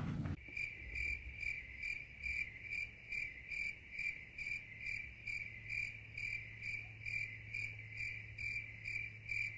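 Cricket chirping, an even run of about two chirps a second over a steady low hum. It starts and stops abruptly, like a sound effect laid over the picture.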